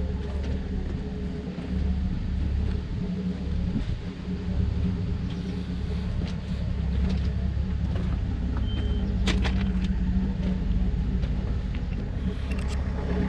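An engine running steadily with a low rumble, with a few sharp clicks about two thirds of the way through.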